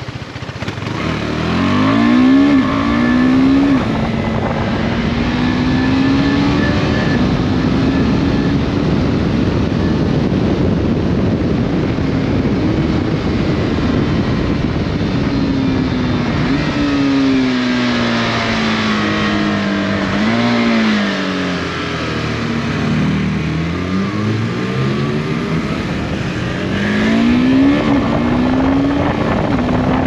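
KTM 390 Adventure's single-cylinder engine pulling hard out of a hairpin, revs climbing and dropping in quick steps as it shifts up about two seconds in, then holding steady revs. Past the middle it winds down on engine braking through downshifts with a short throttle blip, and near the end it pulls away again through the gears. Steady wind rush on the microphone.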